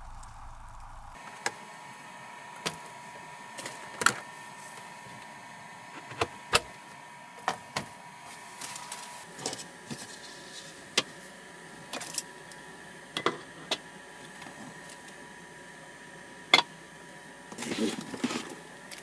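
A dozen or so sharp clicks and knocks of small objects being handled, spaced irregularly, over a steady faint hum, with a short rustling scrape near the end.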